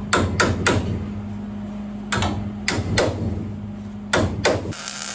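Sharp knocks on steel in three quick groups of two or three, over a steady hum. Near the end the low rumble under the knocks stops and a high hiss takes over.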